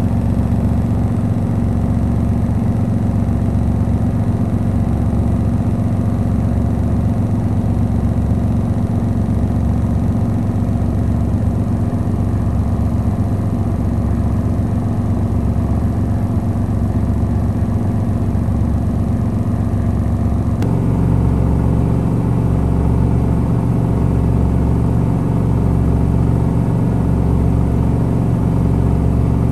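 Electrolux EWT1567VIW top-loading washing machine running: a loud, steady motor hum and drum rumble. About two-thirds of the way through the sound shifts abruptly to a deeper throb that pulses a little more often than once a second.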